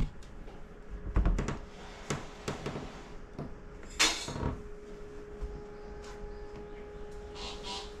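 Footsteps and light knocks as a person walks across a tatami room. About four seconds in there is a brief swish, the loudest sound. Right after it a steady hum sets in.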